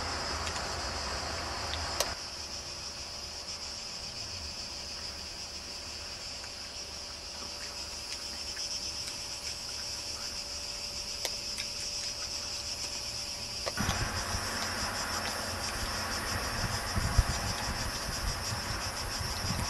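Cicadas chirring steadily in a high, fine-pulsed drone. A low rumble underneath cuts out with a click about two seconds in and comes back about two-thirds of the way through.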